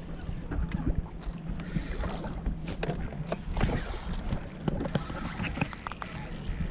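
Water slapping against a small boat's hull with wind on the microphone, and scattered light knocks. There are two louder hissing stretches, about two and five seconds in.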